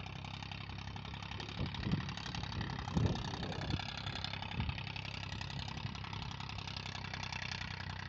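An engine running steadily at idle, with a few short low thumps between about two and five seconds in.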